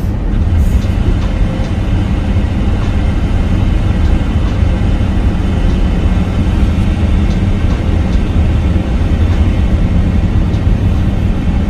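Steady road and engine noise of a car driving through a road tunnel, heard from inside the cabin: an even, low rumble.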